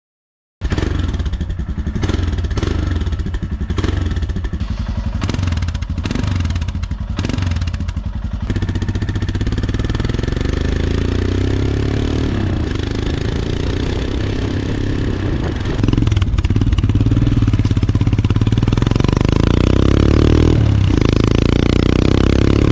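Royal Enfield Himalayan's single-cylinder engine running through an aftermarket Delkevic carbon fiber exhaust as the bike is ridden, with a deep, low exhaust note. It comes in about half a second in, choppy at first, then steadier, growing louder and rising in pitch under acceleration in the second half.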